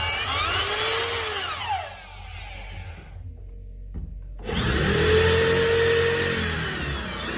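Corded 220 V two-mode (drill and hammer) electric drill running with no load, its motor speed rising and falling under the variable-speed trigger. It winds down about two seconds in and is off briefly. It spins up again about halfway through, runs steadily, then eases off near the end.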